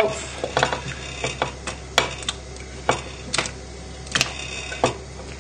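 Chunks of peeled potato dropped one at a time into a saucepan of hot water, each landing with a short plop or knock: about a dozen irregular hits over a few seconds.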